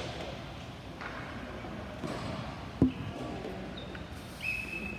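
Steady background noise with one sharp thud a little under three seconds in, and a short steady high tone near the end.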